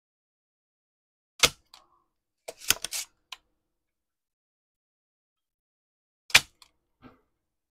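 Spring-loaded desoldering pump (solder sucker) clicking as it is cocked and fired to suck molten solder off the circuit board joints: a sharp snap about a second and a half in, a quick cluster of clicks around three seconds, and another sharp snap just past six seconds.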